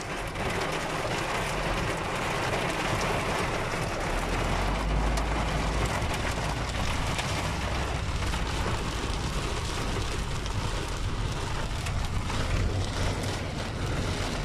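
Hail and heavy rain pelting a car's windscreen and roof, heard from inside the moving car: a dense steady patter studded with sharp ticks, more of them in the second half, over the low rumble of the car.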